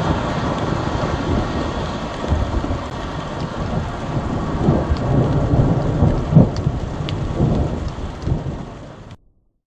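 Rolling thunder rumbling over a steady hiss, swelling several times, with its sharpest and loudest clap about six seconds in. It fades and then cuts off abruptly near the end.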